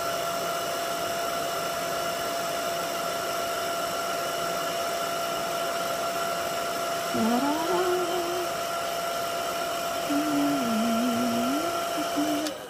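Handheld hairdryer with a directional nozzle running steadily, a fan whine over rushing air, switching off just before the end. Twice, from about seven and ten seconds in, a low wavering tone rises and falls over it.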